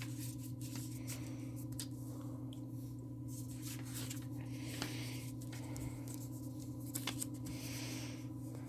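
Faint rustling and light clicks from a diamond painting canvas and its packaging being handled and folded, coming and going in short patches over a steady low electrical hum.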